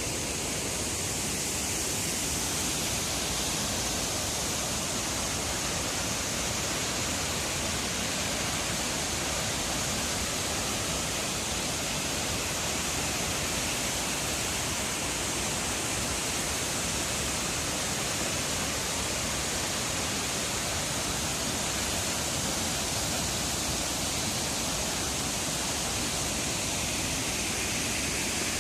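A 15-metre waterfall falling steadily into its pool: an even, unbroken rush of water with a strong hiss.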